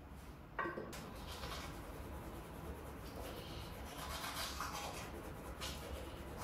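Washing up at a bathroom sink: irregular scrubbing and rubbing that starts suddenly about half a second in.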